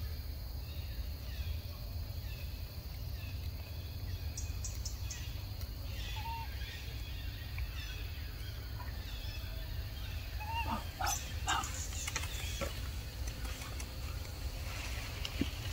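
Outdoor ambience: a steady low wind rumble on the microphone under faint bird chirps. A few short animal calls and clicks come in the middle, most of them about two-thirds of the way in.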